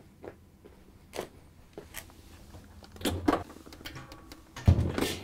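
A Whirlpool direct-drive washing machine being tipped back upright: a few light knocks and clicks from its sheet-metal cabinet, then a heavy thud near the end as it comes down onto its feet.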